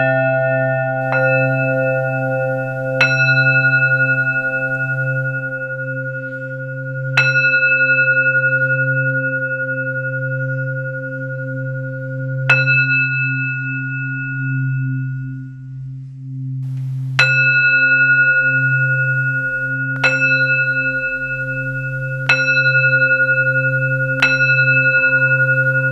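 Tibetan singing bowls struck one at a time with a red padded mallet, about eight strikes a few seconds apart, each ringing on in long, slowly fading bell tones. The strikes thin out to a short lull about halfway through, then come faster near the end, over a steady low hum.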